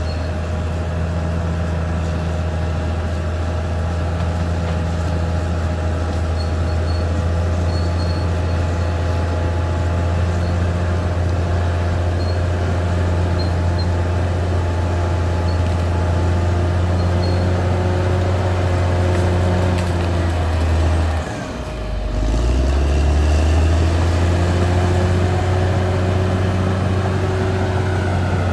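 Caterpillar D6R XL bulldozer's diesel engine running steadily. About 21 seconds in, it dips sharply in pitch and loudness, then climbs back up and runs on.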